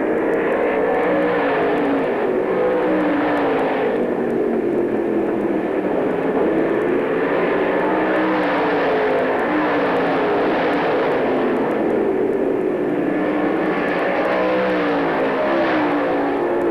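Several dirt-track race car engines running at racing speed together. Their pitch rises and falls in waves as the cars accelerate and lift around the oval.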